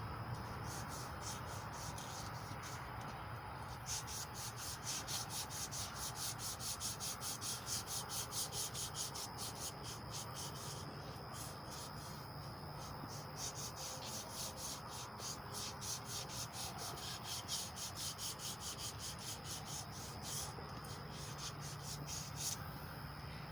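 A strip of emery cloth is pulled back and forth around a small-block Chevy 350 crankshaft journal to polish it. It makes a rhythmic rasping of about two strokes a second that starts about four seconds in and stops near the end.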